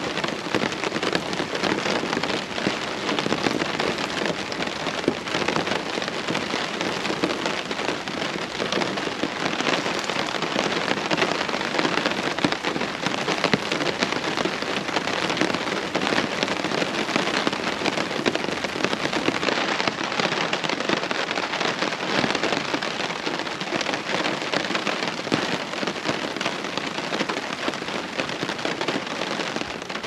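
Steady rain pattering on a tarp overhead, a dense, even patter of many drops.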